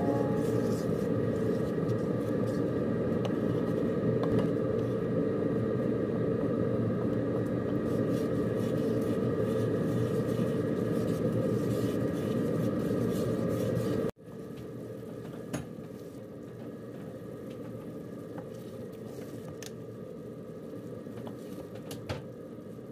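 Pad Thai sauce simmering in a frying pan and being stirred with a wooden spoon, with light scrapes and taps of the spoon against the pan over a steady hum. About fourteen seconds in the sound drops sharply and carries on quieter.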